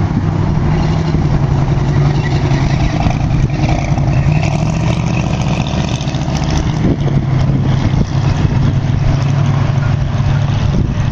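Classic car engines running as the cars cruise slowly past, a steady low engine sound.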